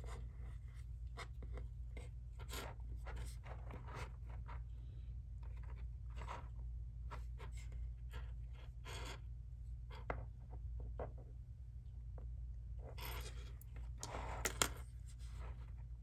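Fingers pulling and rubbing thin cord while tying macrame square knots: a scatter of short soft scratches and rustles, busiest near the end, over a steady low hum.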